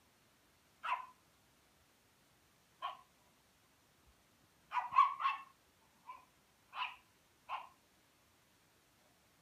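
A dog barking in short, sharp barks, about seven in all, spaced unevenly. The loudest is a quick run of three barks around the middle.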